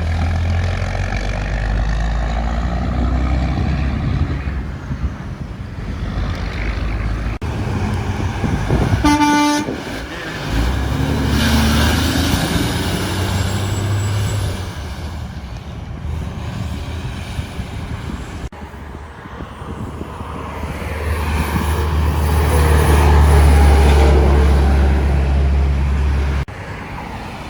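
Heavy trucks passing on a highway, their engines and tyres making a deep rumble that swells and fades as each goes by, with one brief horn blast about nine seconds in.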